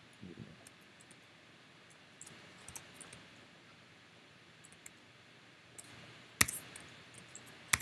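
Scattered faint clicks of a computer mouse and keyboard over low room hiss, with two sharper clicks near the end.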